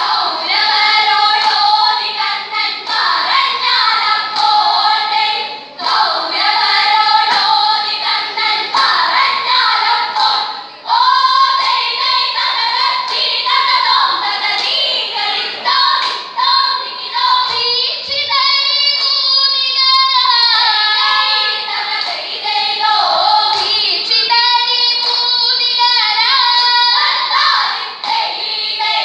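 A group of schoolgirls singing vanchipattu, the Kerala boat song, together in unison, with hand claps keeping the beat.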